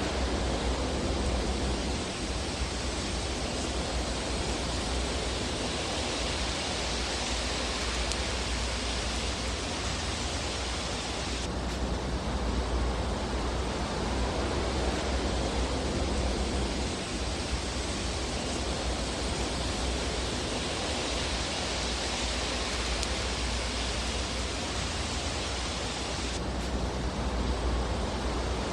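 Steady rushing hiss with a low rumble under it, slowly swelling and easing, with no distinct crackles or pops. The fire ambience track of a fireplace sleep video.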